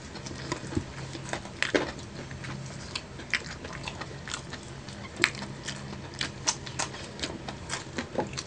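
Close-up eating sounds of crispy fried chicken wings: irregular sharp crunches and clicks of biting and chewing.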